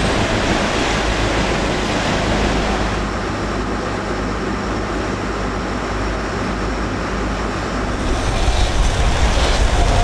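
Sportfishing boat under way: its engine drones steadily under a rush of water and wind. It grows a little louder near the end.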